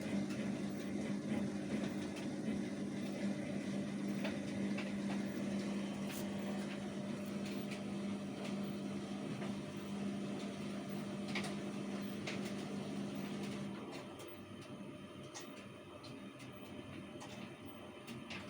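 Samsung washing machine running with a steady hum that stops about three-quarters of the way through, with scattered light clicks and knocks.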